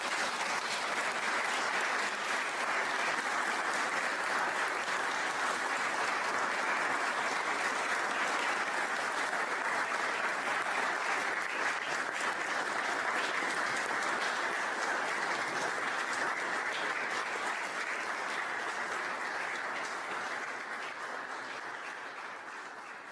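Congregation applauding steadily, the clapping fading out over the last few seconds.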